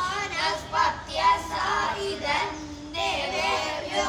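Several young boys singing a devotional chant together, a melodic line with held, wavering notes.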